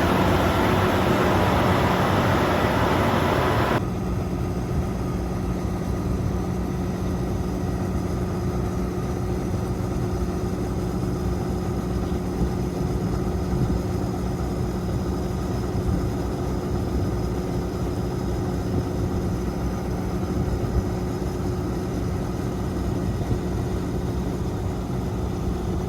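John Deere 9430 tractor's diesel engine running steadily with a low hum. About four seconds in, the higher hiss drops away suddenly and the engine tone carries on.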